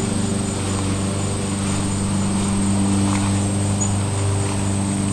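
LG 6,000 BTU window air conditioner running, a steady hum from its compressor and fan.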